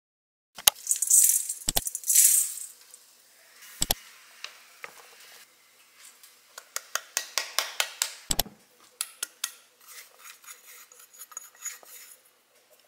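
Ceramic measuring cup knocking and clinking against a stainless steel mixing bowl as dry flour is poured in, with a soft hiss of pouring powder early on. A run of quick light taps and clicks follows in the second half.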